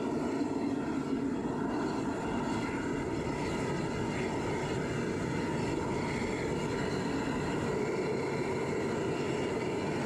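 Foundry furnace burner firing steadily at full heat, a loud, even rushing roar of flame and air with flame venting from the lid, during a burn-out firing.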